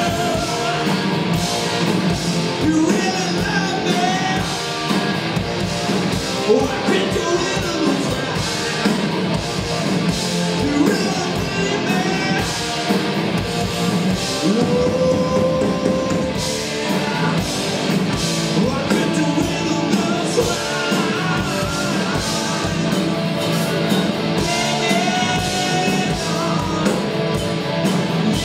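A rock band playing live: electric guitars, bass guitar and a drum kit, loud and steady throughout.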